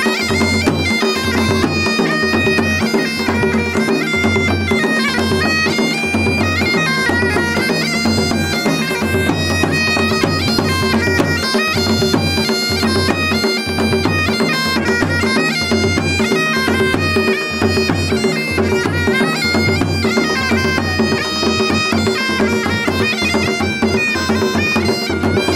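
Masakbeen, the Garhwali bagpipe, playing a continuous melody on the chanter over steady, unbroken drones.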